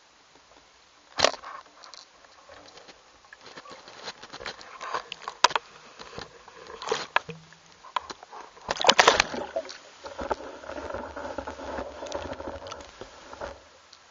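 A homemade underwater camera rig in a sealed enclosure splashes into the lake about a second in. Irregular knocks, clicks and rattles follow as it sinks, with a dense clatter partway through, then a few seconds of steady muffled rushing before it settles.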